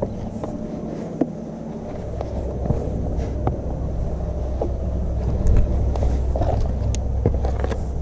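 Steady low rumble of wind buffeting the microphone, with scattered clicks and scuffs of a hiker's footsteps on the trail.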